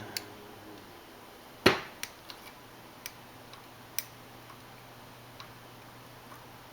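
Metal clicks and taps from a tool working on a revolver's parts during disassembly: one sharp knock about one and a half seconds in, then a few light scattered ticks.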